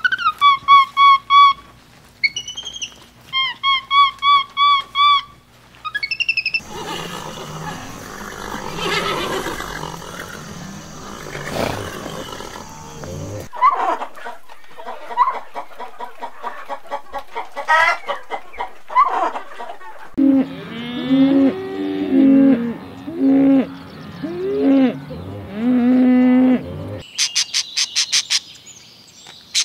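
A string of different animal calls, one after another. First come quick, repeated high chirps in short runs. A noisy stretch follows, then scattered short calls and a run of lower calls that bend up and down in pitch. It ends in a fast, high trill.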